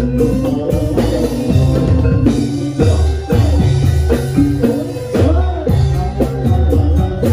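Loud live Javanese dance accompaniment music with kendang drumming and pitched instruments, running on with a steady repeating drum pattern.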